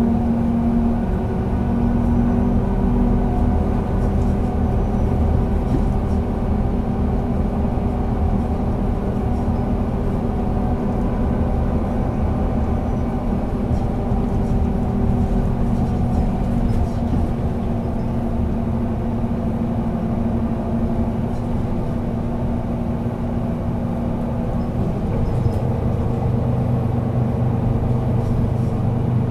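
Solaris Urbino 12 III city bus (Euro 6) running under way, its engine holding a steady note that rises and falls gently in pitch over a low rumble.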